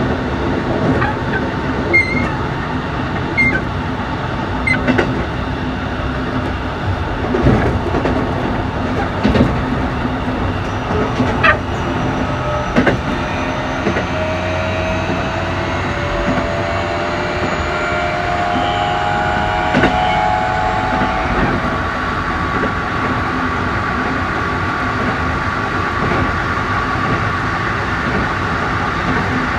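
Onboard running sound of a Keikyu New 1000 series motor car with Toshiba IGBT-VVVF inverter control: wheels clicking over rail joints in the first half, then the traction motors and inverter whining in several gently rising tones about halfway through, with higher steady tones after.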